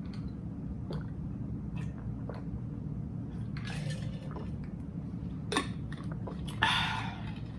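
Small clicks, taps and squishy rustles of food and tableware being handled at an eating table, over a steady low hum, with a louder rustle near the end.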